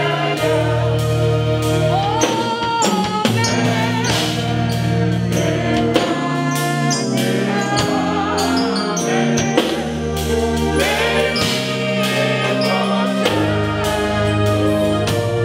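Live gospel praise music: singing over a band with drums and a steady bass line.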